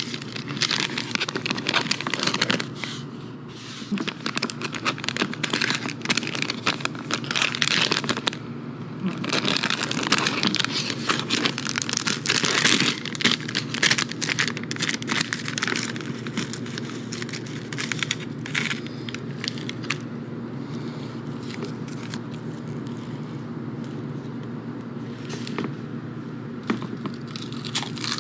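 Plastic snack pouch crinkling and crackling as it is handled and torn open, in dense bursts that thin out about two-thirds of the way through, leaving a steady low hum.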